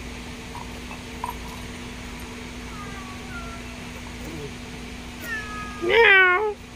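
Meowing: a few faint meows in the middle, then one loud, wavering meow about six seconds in.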